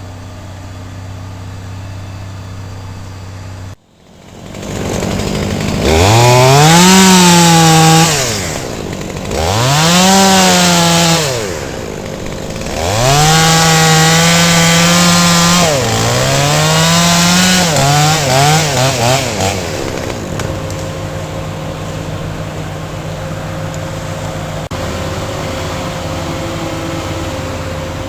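Chainsaw revved to full throttle in four long bursts with short drops between, cutting wood, then settling back to a steady lower run.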